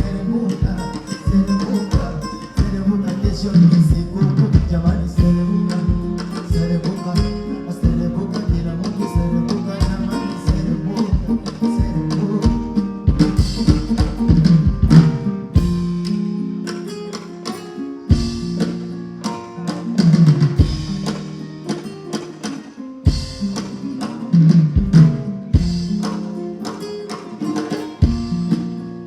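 Music with a steady, regular drum beat over pitched instruments. The beat drops out twice for a second or two, about halfway through and again a few seconds later.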